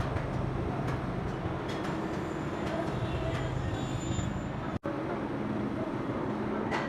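Industrial machinery running steadily: a low hum with faint scattered clicks, dropping out for an instant nearly five seconds in.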